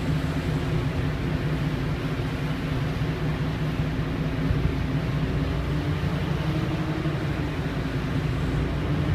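Steady low rumble of a vehicle, with a faint hum that wavers slightly in pitch.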